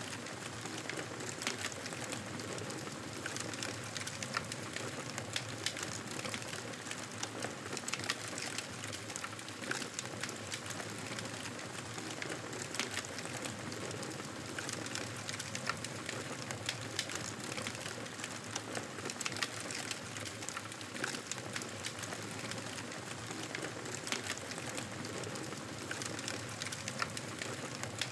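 Campfire crackling: a steady hiss of burning wood with frequent small pops and snaps.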